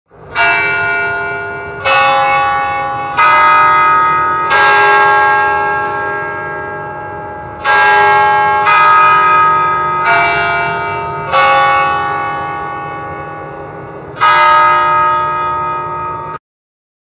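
Church bells of several different pitches struck one at a time, about nine strokes at uneven intervals, each left ringing and slowly dying away before the next. The ringing cuts off suddenly near the end.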